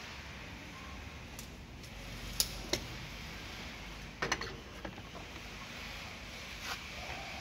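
A handful of light clicks and knocks as a wooden strip is handled and set down on a miter saw's table against the fence, over a faint steady hiss; the saw is not running.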